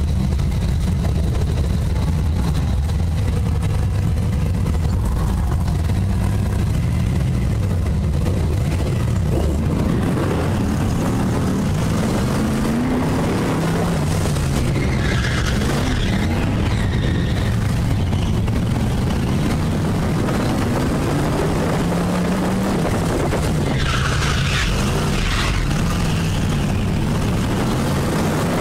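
BriSCA Formula 1 stock car's V8 engine heard onboard, revving up and down as the car laps a short track. Two brief spells of higher, hissing noise sound over it, around the middle and about three-quarters through.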